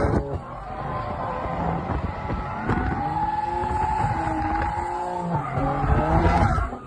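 Car engine revving up and down while the tyres squeal, as in a drift.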